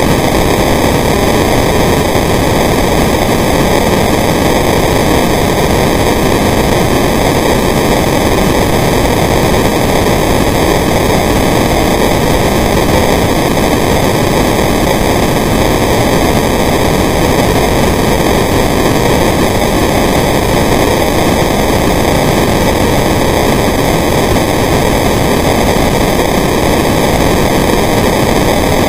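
Steady, loud hiss of a camera recording underwater, even throughout, with no separate bubble or breathing sounds standing out.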